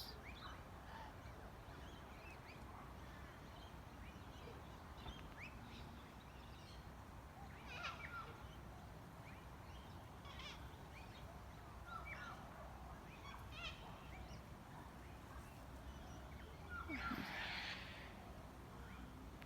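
Sulphur-crested cockatoos calling, with scattered short bird chirps; one harsh, louder screech comes near the end.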